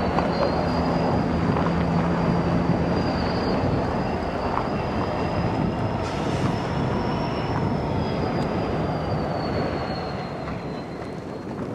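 Freight train rolling past, its wheels giving a thin, high squeal that rises slightly, holds and then sags in pitch over the rumble of the cars. The sound fades gradually near the end.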